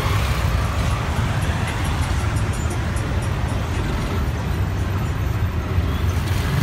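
Large bus engine running close by with a steady low rumble as the painted chicken bus, a converted school bus, drives slowly past.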